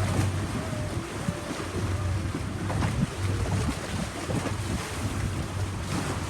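A boat under way: a steady low engine drone, with wind buffeting the microphone and water rushing and splashing past the hull.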